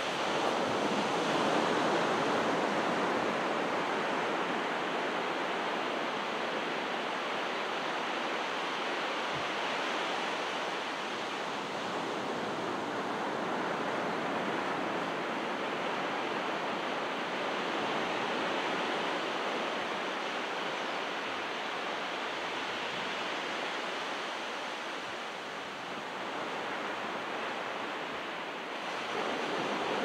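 Small ocean waves breaking and washing onto the shore: a steady rush of surf that slowly swells and eases, louder in the first couple of seconds and building again near the end.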